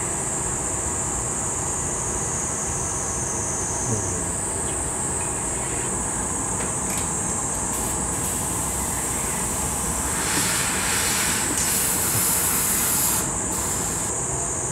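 Steady roar of a gas-fired glassblowing furnace, with a constant high hiss over it. About ten seconds in, a louder hiss swells for roughly three seconds and then drops back.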